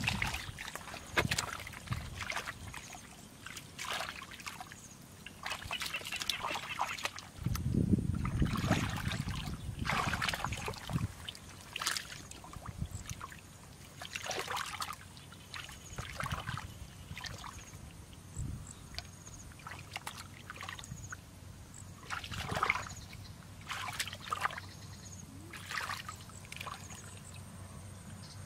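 Hands and feet splashing and sloshing in shallow muddy water, in irregular bursts, as the pool bottom is groped by hand for fish.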